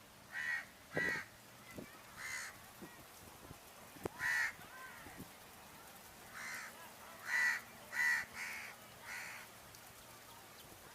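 Crow cawing about nine times: a few caws spread over the first half, then a quicker run of five in the second half. A few faint short knocks fall between the calls.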